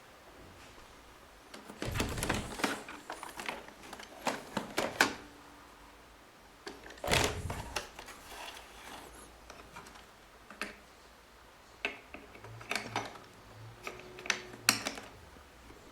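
Hard plastic parts of a robot vacuum being handled: irregular clicks and knocks in several bunches with pauses between, a few with a dull thud.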